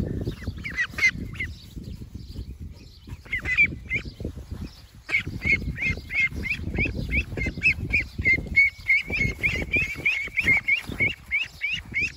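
Young ducks peeping: short, high, rising cheeps, a few scattered early and then a steady run of about three to four a second through the second half, over a low rustle.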